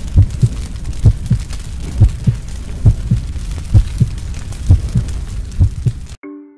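Cinematic heartbeat sound effect: deep paired thumps, lub-dub, about one pair a second, over a low rumbling hiss. It cuts off suddenly near the end, and short pitched mallet notes of music begin.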